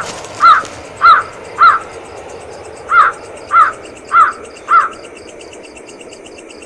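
A bird calling in two runs of four harsh, arched calls, about two calls a second, with a pause between the runs. Insects chirr steadily behind it in a fast high pulse.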